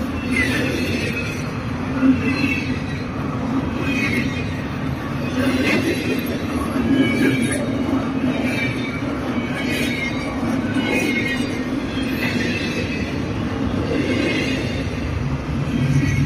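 Double-stack intermodal freight train passing close by: container well cars rolling over the rails with a steady rumble. Short higher-pitched sounds recur every second or two.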